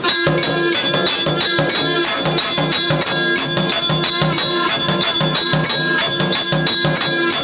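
Electric temple aarti machine starting up and playing: mechanical strikers beat a bell, a jhalar gong plate and a nagara drum in a fast, steady rhythm, the bell ringing on between strokes.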